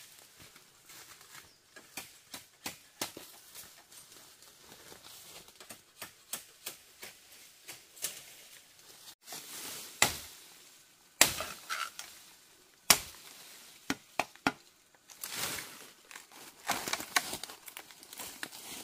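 Irregular sharp knocks, snaps and cutting sounds, like hand work with a blade on wood or stalks, with three louder strikes near the middle.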